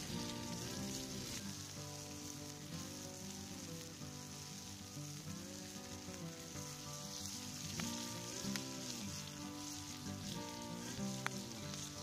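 Eggs and bacon frying in a pan over an open wood fire: a steady sizzle with a few sharp pops. Soft background music plays underneath.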